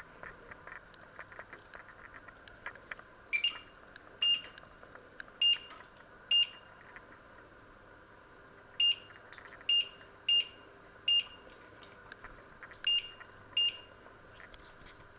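Induction hob's touch controls beeping: ten short, high beeps in irregular groups, one for each touch of a control as the settings are changed.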